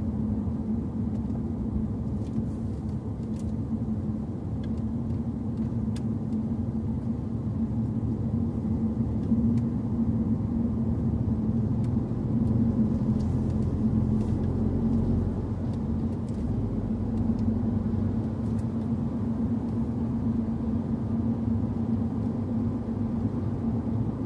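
Car engine running at a steady, unchanging speed with a constant hum, over low rumble.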